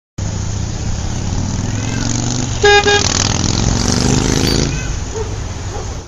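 Road traffic: a steady vehicle engine rumble, with a car horn honking twice in quick succession about halfway through.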